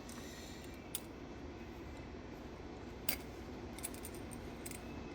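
A few faint, sharp metallic clicks from small metal parts being handled, the clearest about a second in and about three seconds in, over a low steady background hum.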